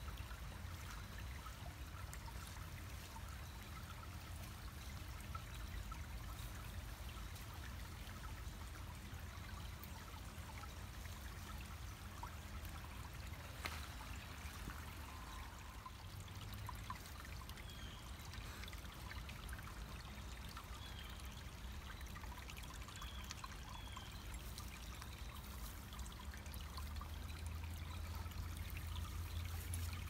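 Shallow rocky creek trickling and babbling over stones in a steady stream, a little louder near the end. Faint short high bird chirps come in now and then in the middle.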